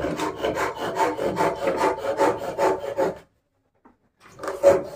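Rapid, even rasping on wood, like a hand file or rasp worked back and forth at about six strokes a second. It stops about three seconds in, and a brief second burst follows near the end.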